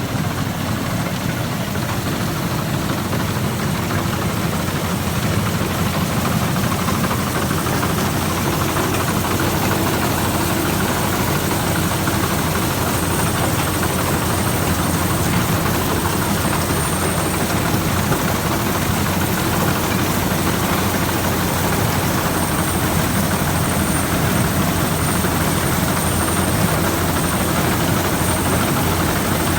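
Rice combine harvester running steadily while harvesting: a constant engine drone with the noise of its cutting and threshing machinery.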